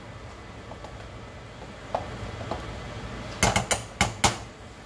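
A metal spoon knocking against the side of a metal pot as butter is knocked off it onto flour: a single light click about two seconds in, then a quick run of about five sharp clinks near the end, over a low steady hum.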